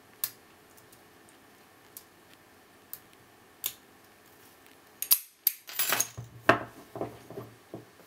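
Brass Abus 65CS/50 padlock being picked: a few sharp metallic clicks of the hook pick in the keyway, a second or so apart. About five seconds in comes a burst of louder clicks and metallic clatter as the lock gives and the shackle comes open.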